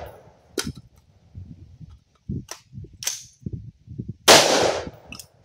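AR-15 rifle magazine change: a few short metallic clicks and clacks, then a single rifle shot about four seconds in. The echo of the previous shot is fading at the start.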